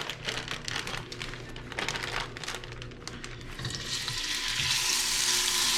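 Steak dropped into a pan of hot olive oil: scattered crackling at first, then a steady sizzle that builds about four seconds in as the meat fries.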